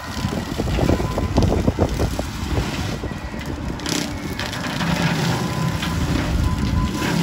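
Bobcat skid steer running under load while its Vail X Series brush cutter chews through brush and saplings, with a run of crackling and snapping of breaking wood in the first two or three seconds, then a steadier engine and cutter drone.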